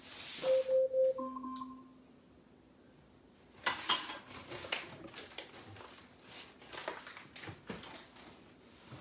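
An Alexa smart speaker's timer alarm chiming: three quick beeps on one note, then a higher and a lower held tone, repeating. It plays once about half a second in. From about four seconds in there are faint irregular clicks and crackles.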